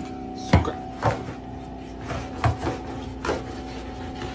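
A thin rod jabbed and swept under a refrigerator, knocking against the appliance and the floor about half a dozen times at irregular intervals, over a steady hum.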